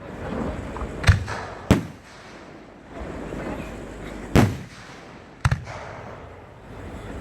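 Fireworks bursting: about five sharp bangs spread over seven seconds, two of them close together near the end, with a low rumble between the bangs.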